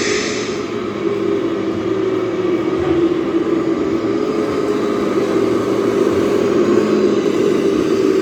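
Radio-controlled model vehicle running with a steady motor-like drone, with a short hiss at the very start.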